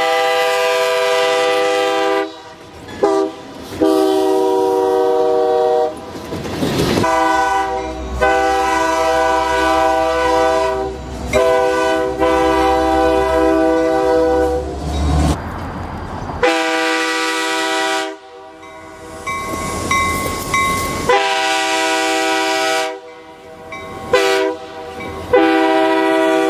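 A series of Nathan K3-series three-chime locomotive air horn blasts, long and short, each a steady chord cutting off sharply before the next. Under the longer blasts in the middle runs the low rumble of a passing train.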